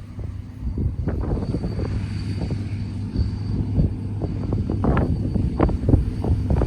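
A steady low engine hum from harvest machinery, with irregular knocks and rattles throughout.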